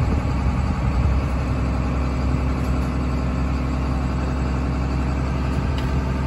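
Heavy truck's diesel engine idling steadily at close range, a low even rumble.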